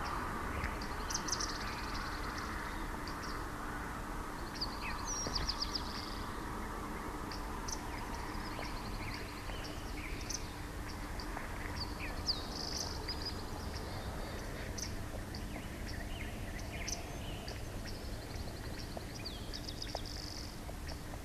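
Small birds trilling and chirping, several short high trills and scattered chirps, over a steady low outdoor rumble and a faint hum from the bald eagle nest cam's microphone.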